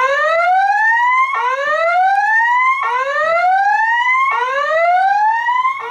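Fire alarm voice-evacuation speaker sounding its whoop alert tone between spoken evacuation messages, signalling an emergency evacuation of the building. It plays four loud rising sweeps, each about a second and a half long, repeating back to back.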